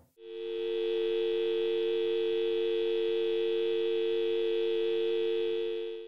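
Telephone dial tone: a continuous steady two-note tone, the pair used for North American dial tone, fading in just after the start and held without a break. It is the sound of an open line with no call connected.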